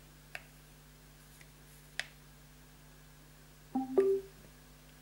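Small portable speaker switched on, giving its power-on chime: two short rising tones about four seconds in. Before it, a couple of faint clicks over a faint steady hum.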